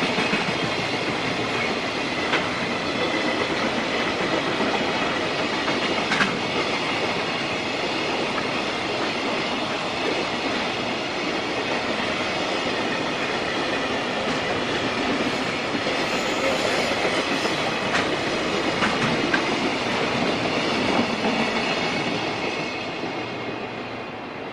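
Freight train's wagons rolling past at close range, a steady rumble with wheels clicking over rail joints now and then. The sound fades near the end as the train goes by.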